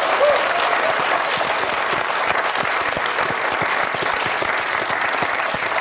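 Studio audience applauding steadily, a dense, even patter of many hands clapping.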